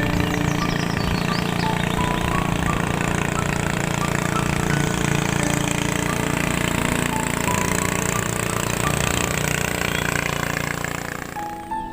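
A small engine running steadily with a fast low pulse, dying away about eleven seconds in.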